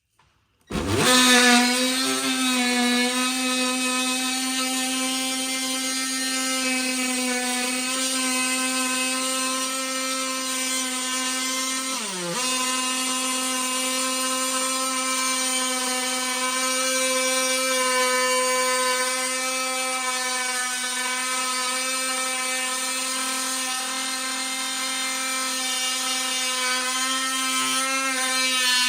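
An electric power tool's motor runs continuously at a steady high speed for nearly half a minute. Its pitch dips briefly about twelve seconds in, then recovers.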